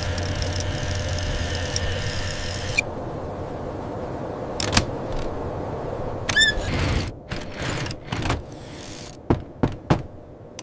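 A vehicle engine running steadily, cutting off abruptly about three seconds in. It is followed by a click, a short wavering squeal and a few sharp knocks.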